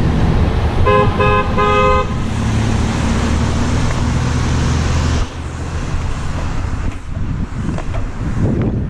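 A car horn beeps three times in quick succession about a second in, two pitches sounding together, the last beep a little longer. Steady wind rush on the microphone and a low vehicle rumble run underneath; the rumble drops off suddenly about five seconds in.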